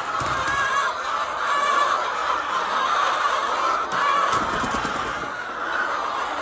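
A flock of laying hens clucking and calling all at once, a steady dense chatter of many overlapping voices.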